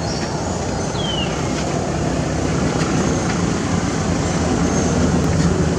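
Steady low rumble of background noise, with one short high falling squeak about a second in.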